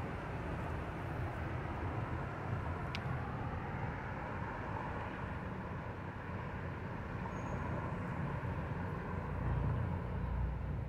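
Road traffic driving by: cars passing on the road below, a steady hum with faint tyre whine, swelling louder as a car passes close near the end.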